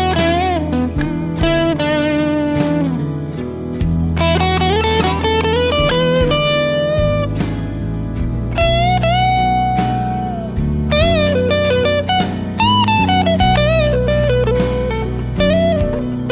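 Guitar playing a slow blues lead, single notes with bends and vibrato, over long, low sustained bass notes.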